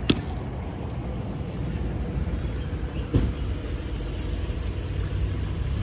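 Street traffic: vehicle engines running and passing as a steady low rumble, with two sharp knocks, one right at the start and one about three seconds in.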